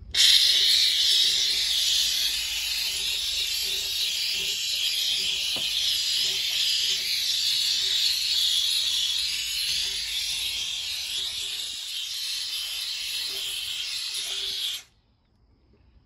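Grant's handheld steam cleaner jetting steam through its flexible hose and small stiff brush nozzle: a steady hiss that cuts off suddenly near the end when the trigger is released.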